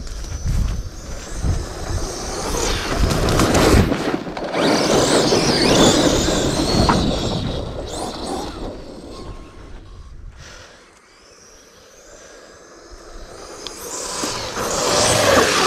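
1/5-scale Arrma Outcast RC truck driven hard over loose dirt, its brushless electric motor whining up and down in pitch over the rush of tyres and flung dirt. The sound fades about two-thirds of the way in and builds again near the end.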